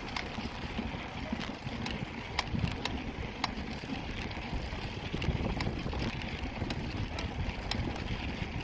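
Wheels rolling over a paving-stone street, a low rumble with irregular sharp rattling clicks, and wind buffeting the microphone.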